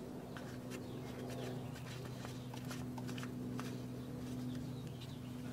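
Faint clicks and scrapes of a plastic oil filler cap being screwed by hand into a motorcycle's clutch cover, over a steady low hum.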